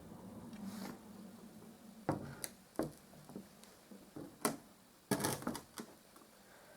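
A few short, light knocks and clicks from handling, scattered over several seconds against quiet room background.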